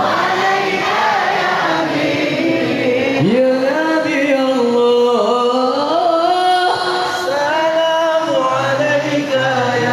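Voices singing a sholawat together as a chorus, the melody moving in long held notes and slides, with one voice swooping up a little over three seconds in.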